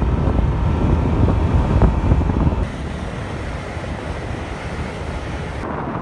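Wind buffeting the microphone of a moving road vehicle, a heavy rumble for the first two and a half seconds, then dropping to a steadier, quieter road noise.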